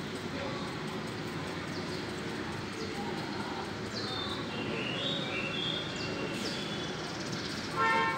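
Steady outdoor background rumble, with a few short bird chirps a little past the middle and a brief, louder pitched call near the end.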